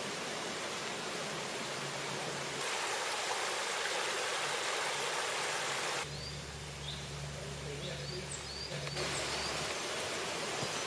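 Rushing river water, a steady hiss that grows louder after about two and a half seconds. About six seconds in it cuts to quieter water with a low rumble and small birds chirping.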